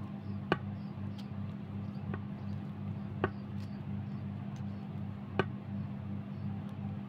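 Kitchen knife cutting pieces off a carrot held in the hand, giving four sharp, irregular clicks a second or two apart, over a steady low hum.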